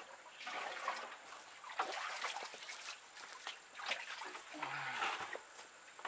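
Muddy water sloshing and splashing as a 5-gallon plastic bucket is dipped into a flooded clay pit and hauled out full, in several uneven swishes.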